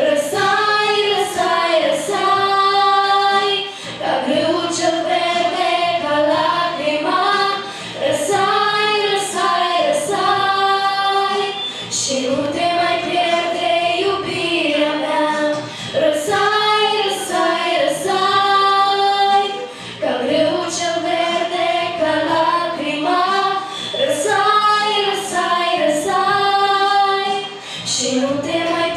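Girls singing a song into handheld microphones: phrases of long held notes, with short breaks between the lines.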